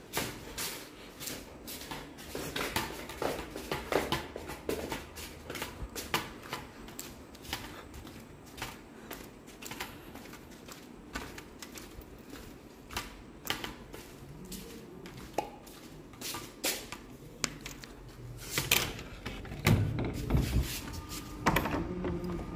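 Footsteps in rubber slide sandals slapping and clicking irregularly on a hard floor, with a few heavier knocks near the end.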